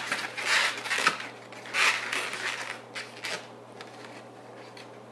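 Latex modelling balloons rubbing against each other as a twisted balloon monkey is handled, in several scratchy bursts over the first three seconds or so.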